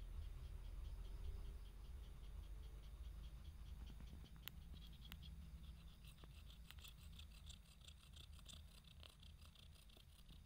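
Long-haired calico cat purring faintly, a low steady rumble, with a few soft clicks about halfway through.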